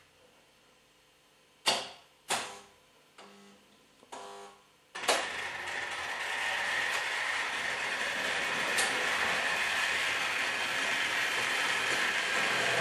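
Trix Express H0 model railway under automatic control: several sharp clicks of the layout's switching (turnouts and relays), then about five seconds in a model train starts and runs with a steady whirring noise on the track.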